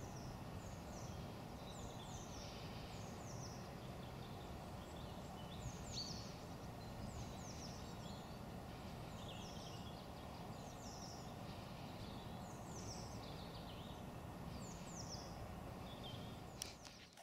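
Small birds chirping, a busy run of short falling notes, over a faint steady low rumble. The sound cuts off suddenly near the end.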